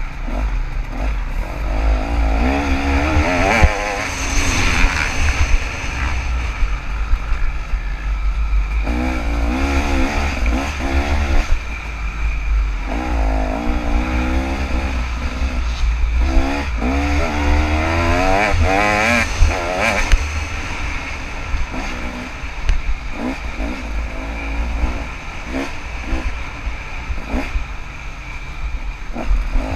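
KTM 300 two-stroke dirt bike engine revving up and down again and again as the bike is ridden, the pitch rising and falling with each twist of the throttle, over a heavy continuous low rumble.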